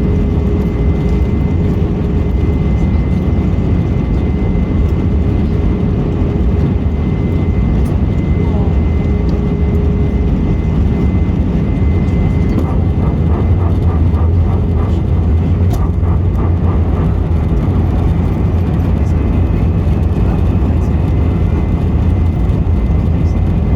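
Steady low rumble of an Airbus A321 heard from inside the passenger cabin, with a thin steady whine above it. Faint voices come through briefly around the middle.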